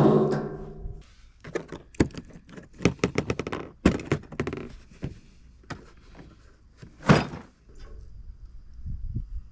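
A power drill spins down in the first second. Then comes a run of sharp clinks, clacks and knocks as metal pergola hardware (bolts, base plates and aluminum column parts) is handled and fitted, with one louder knock about seven seconds in.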